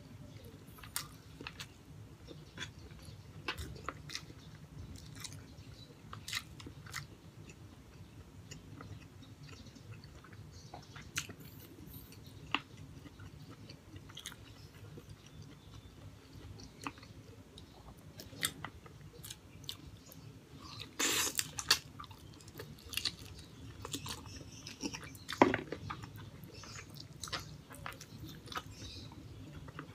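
Close-miked chewing and wet mouth clicks of a person eating braised pork hock and rice by hand, over a low steady hum. A louder noisy stretch comes about two-thirds of the way through, with one sharp snap a few seconds later.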